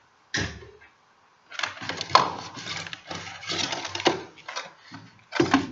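Irregular rustling, knocking and clicking of objects being handled close to the microphone, in several bouts with short pauses between them.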